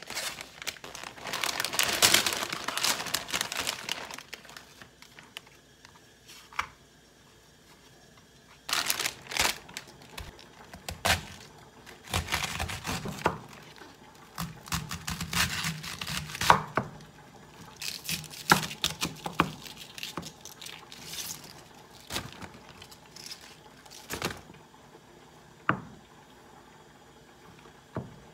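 Food preparation on a wooden cutting board. Plastic packaging crinkles first. Then a kitchen knife crunches through a head of cabbage, tearing the leaves apart. Near the end a few sharp knife taps hit the board as sheets of fish cake are sliced.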